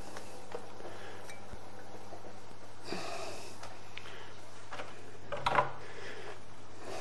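A man breathing and sniffing through his nose close to the microphone, over a steady low electrical hum, with a brief louder rustle about five and a half seconds in.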